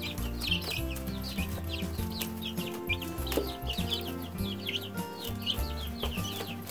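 Three-week-old chicks peeping constantly, many short high chirps a second, each falling in pitch. Background music with low held notes sits underneath.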